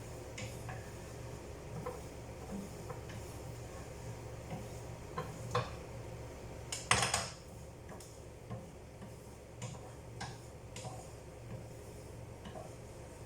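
Pots, dishes and metal utensils clinking and knocking as someone works at the cooking, with a short louder clatter about seven seconds in, over a steady low hum.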